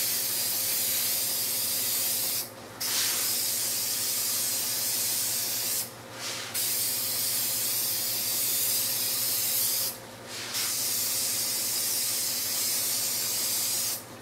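Aerosol can of 3M Super 77 spray adhesive spraying a coat of glue onto a glass pane: long steady hissing sprays, broken by three short pauses, stopping near the end.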